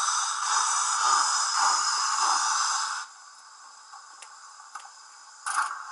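Steam hiss played by the Lenz Br86 model locomotive's DCC sound decoder through its on-board speaker, running for about three seconds and then cutting off, with a second brief hiss near the end.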